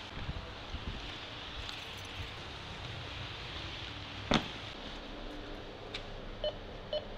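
Short electronic beeps, about two a second, starting near the end, over a steady hiss. A few soft knocks come in the first second and one sharp click about four seconds in.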